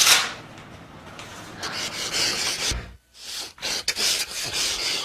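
Rubbing and rustling of hands and clothing against skin and a treatment table during chiropractic adjustments, with a brief break about three seconds in and a few sharp clicks soon after.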